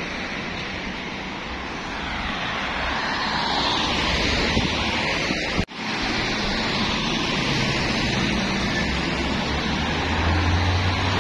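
Steady street traffic noise with wind on the microphone. It cuts out for an instant about halfway, and a deeper rumble comes in near the end.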